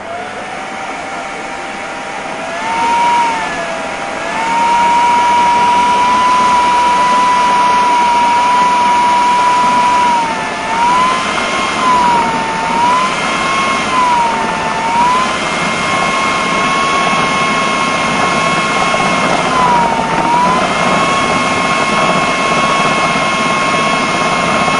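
Food processor motor running at full speed, its blade chopping minced meat and parsley into a smooth kofta mixture. The whine speeds up about four seconds in, then dips briefly in pitch several times before recovering.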